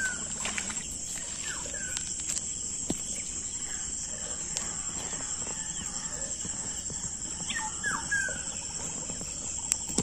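Outdoor ambience: a steady high-pitched insect drone with a few short chirping bird calls, clustered near the start and again about eight seconds in, and a couple of faint clicks.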